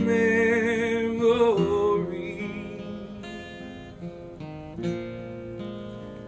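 A man's held sung note with vibrato over acoustic guitar, ending about a second and a half in; then the acoustic guitar alone picks single notes that ring out and fade, growing quieter.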